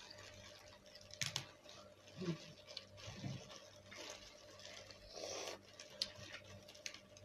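Plastic disposable gloves crinkling while cooked crab is picked apart by hand, with scattered sharp clicks and cracks of shell and a longer rustle about five seconds in, over a faint steady hum.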